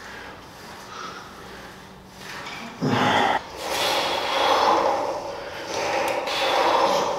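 A man breathing hard with forceful exhales, swelling and fading about once a second, during cable front raises. A short loud noise comes about three seconds in.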